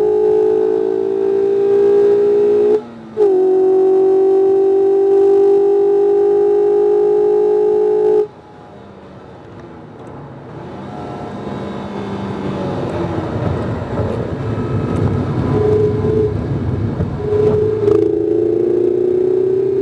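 Mazda MX-5 RF's four-cylinder engine at full throttle, its note climbing steadily, with a quick upshift about three seconds in. About eight seconds in the throttle closes suddenly and the engine note drops away to a low rumble. Near the end the engine comes back on throttle and its note climbs again.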